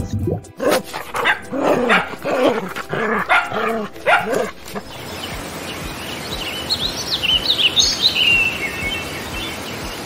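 A dog barking and yelping in a quick run of short calls for about four seconds. A steady hiss with high bird chirps follows partway through.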